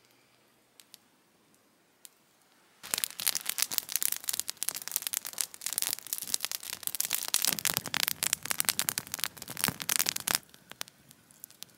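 Wood campfire crackling and popping: a dense run of sharp pops starts about three seconds in and stops abruptly near the end, with only faint scattered clicks before and after.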